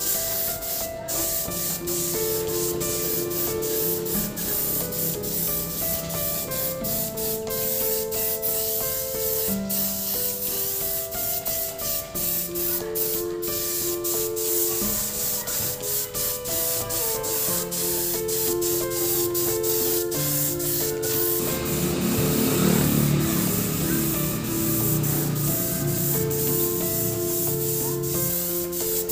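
Compressed-air paint spray gun hissing steadily while spraying paint. A simple background melody plays over it.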